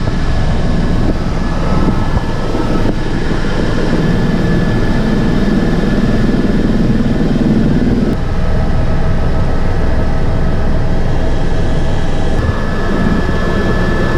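Helicopter running, a steady loud rumble with a thin high whine held on top.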